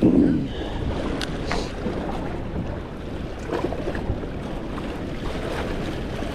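Steady rush of water with wind buffeting the microphone, a brief louder bump at the start and a few faint clicks.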